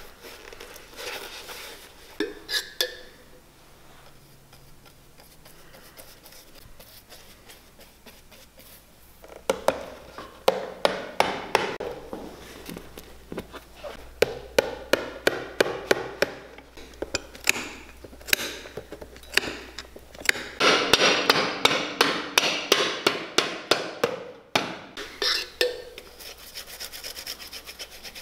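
Wooden shoe pegs being driven into a leather boot insole: a long run of sharp taps starting about a third of the way in, mixed with rubbing and scraping of the leather.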